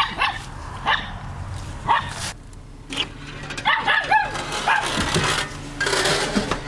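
A dog barking: short barks about once a second, with a quick run of barks around four seconds in. A brief burst of noise near the end.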